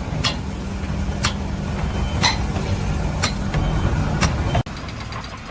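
Engine running steadily with a sharp metallic click about once a second. Near the end it cuts suddenly to a quieter hum.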